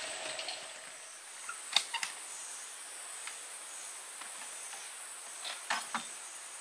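Steady high-pitched insect drone, with a few sharp clicks and snaps scattered through it, the loudest about two seconds in and two more near the end.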